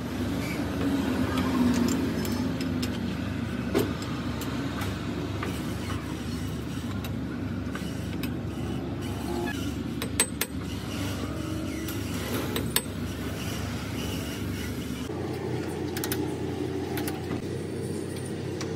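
A few sharp metallic clicks and knocks as a cast metal cylinder blank is fitted by hand into a lathe's four-jaw chuck, over a steady low background hum.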